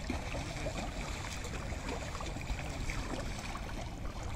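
Shallow river water flowing and lapping close by, with many small gurgles and splashes over a steady low rumble.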